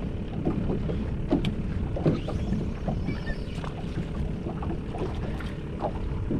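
Water lapping and slapping against the hull of a small fishing skiff, with wind rumbling on the microphone and a faint steady hum underneath. Scattered small clicks and knocks come from handling the rod and reel.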